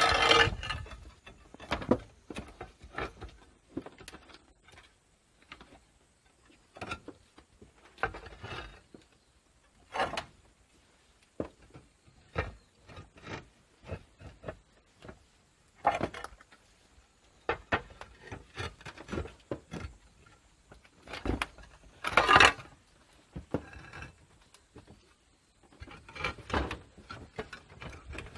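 Scattered knocks, clatters and scraping of hands-on roof repair work, with no steady rhythm and quiet gaps between. The loudest rattling comes at the start and again about 22 seconds in.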